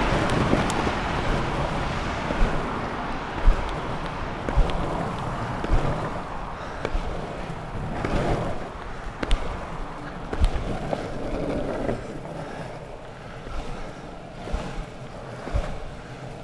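Longboard wheels rolling over rough pavement and asphalt: a steady rumble that eases slightly as it goes on, broken by sharp knocks about a second apart as the wheels cross cracks and joints, with wind on the microphone.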